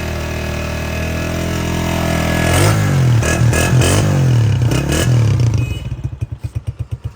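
Honda CG 125 motorcycle's single-cylinder four-stroke engine running, then revved up and down several times in quick blips. It drops back to a slow idle with distinct, evenly spaced exhaust putts.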